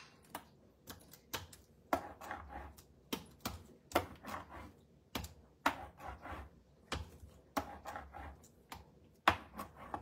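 Rubber brayer rolled back and forth over card stock on a craft mat, laying down purple ink. Each stroke gives a click or knock with a short rolling rumble, about two a second.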